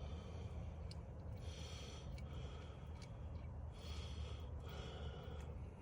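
A person's breathing close to the microphone, a hissy breath about every second and a half, over a low steady hum.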